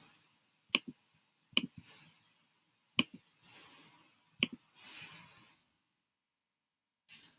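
A handful of sharp, quiet computer mouse and keyboard clicks, spaced a second or more apart, with a few soft hissy swells between them.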